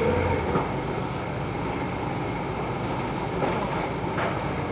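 Forklift engine running steadily as the truck manoeuvres among the pallet stacks.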